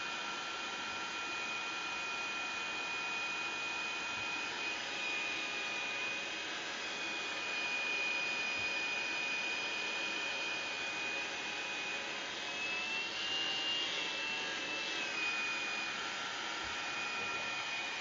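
Handheld hair dryer running: a steady rush of blown air with a thin motor whine, whose pitch lifts briefly about two-thirds of the way through and settles back. It is switched off at the very end.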